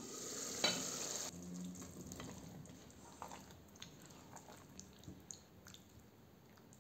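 Tomato sauce bubbling in a pot under a glass lid, with a ringing clink of the lid about half a second in. After that come quieter, scattered scrapes and light taps of a spatula and spoon working potato chunks in the sauce.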